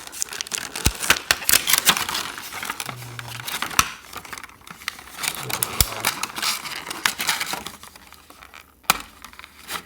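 Small stiff plastic packaging container being pulled apart by hand: rapid crinkling and clicking plastic, thinning out over the last couple of seconds, with one sharp click near the end.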